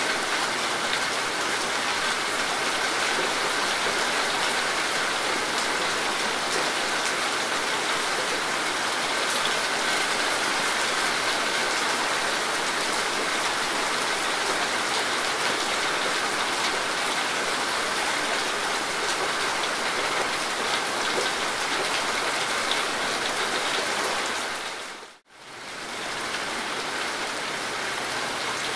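Steady rain falling on leafy foliage, a dense, even hiss of drops. Near the end it fades out for a moment and comes back slightly quieter.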